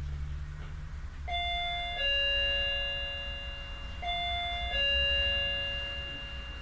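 Electronic doorbell chime playing a two-note ding-dong twice, a higher note then a lower one each time, with each note ringing on and fading slowly.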